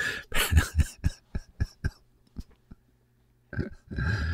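A man's voice in halting, mumbled fragments, broken by short sharp clicks, with a near-silent pause of about a second and a half before he starts again.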